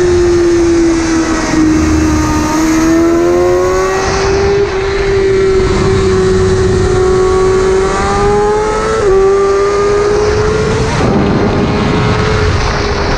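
Motorcycle engine running hard at high revs on a race track, heard on board with wind rush over the microphone. The engine note sags about two seconds in, then climbs steadily, with brief dips about four and nine seconds in as the rider changes gear or rolls off the throttle.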